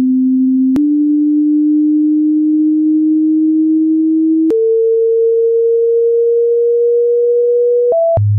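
Pure electronic test tone, one of the sounds said to make dogs tilt their heads. It holds a low steady pitch that creeps slowly upward, jumps higher about a second in and again about four and a half seconds in, then near the end gives a brief higher note and drops suddenly to a low buzz, with a faint click at each change.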